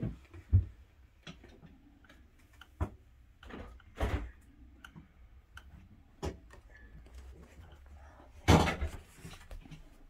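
Scattered knocks and clicks of a repairman working at the back of a refrigerator, with a louder clatter about eight and a half seconds in.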